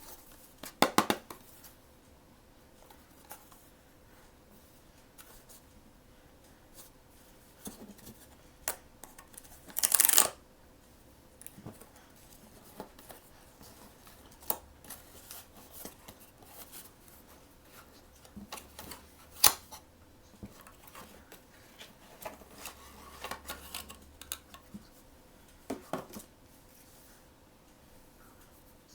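Hands handling and opening blind-box packaging: scattered taps, clicks and short rustles of paper and plastic, with louder bursts about a second in and again around ten seconds.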